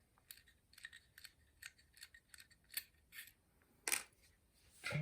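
Small metallic clicks and light scrapes from a Zippo lighter's insert being handled as its flint is taken out, with a louder click a little before four seconds in.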